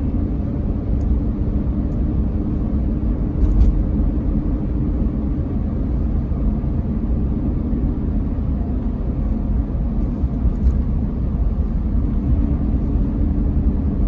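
Road and engine noise of an SUV driving, heard from inside the cabin: a steady low rumble, with one brief knock about three and a half seconds in.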